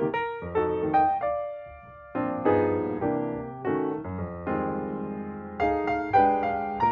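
Background piano music: a slow tune of notes and chords, each struck and left to fade.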